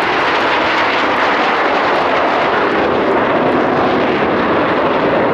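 A close formation of Aermacchi MB-339 single-turbojet trainers flying past, a loud, steady jet engine noise.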